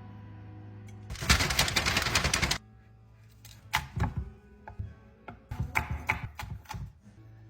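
Knife chopping quickly on a cutting board for about a second and a half, then a few scattered separate knocks, over background music.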